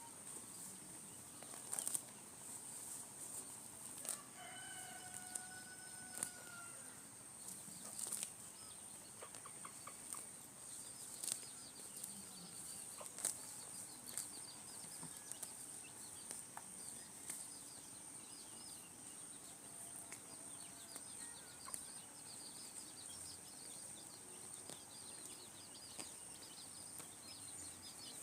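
Outdoor ambience: a steady high-pitched insect drone, one drawn-out bird call about four seconds in, small birds chirping through the second half, and scattered sharp clicks.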